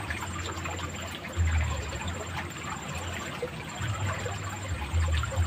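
Muddy ditch water running steadily, a noisy rushing hiss with small splashy ticks, and low rumbles that come and go every second or so.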